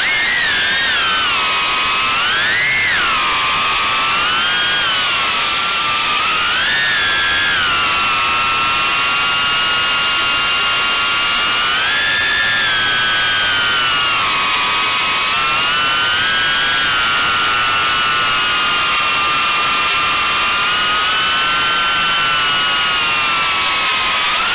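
Motors and ducted trimmed props of a 3-inch Armattan Gecko cinewhoop quadcopter whining in flight, as heard from its onboard camera. The pitch swings up and down with the throttle, most strongly in the first several seconds, and holds fairly level for most of the rest.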